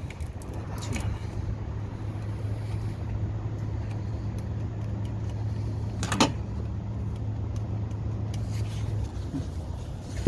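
A 2004 Honda Civic's engine idling with a steady low hum that drops away about nine seconds in. There is a sharp click about six seconds in.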